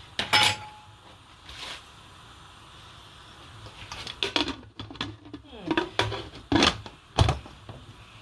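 Kitchen utensils and cookware clanking against a pot as cooked cow foot is moved into the pepper sauce: a loud metallic knock with a brief ring about half a second in, then a run of scattered clanks and knocks in the second half.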